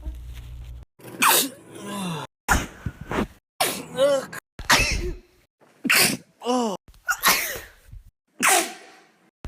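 A quick run of human sneezes, about seven, one after another from separately cut clips, each a sharp burst, some with a voiced 'achoo'.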